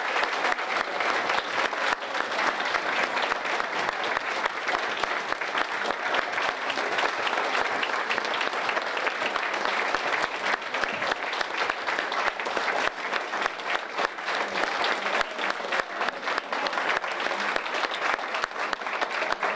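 Audience applauding in one long, steady round of clapping.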